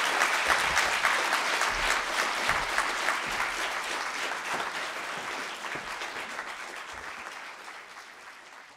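A seated audience applauding, many hands clapping together, fading out steadily toward the end.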